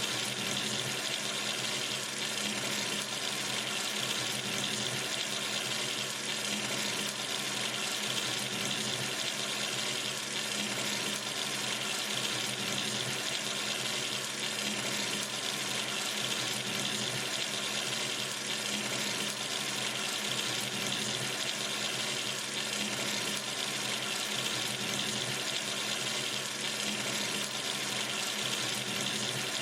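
Water running steadily from a sink tap into the basin, an even, unbroken rush of water.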